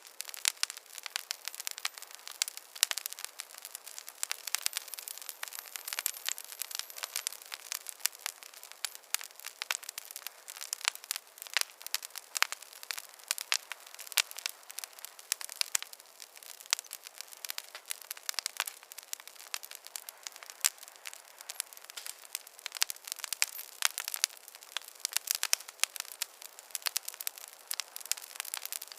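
Wood fire crackling in a fireplace: a dense, irregular stream of sharp pops and snaps over a soft hiss.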